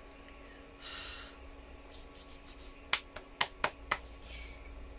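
A fingertip rubbing soft pastel into paper, a short dry brushing hiss. About three seconds in come five quick, sharp slaps of the hands clapped together.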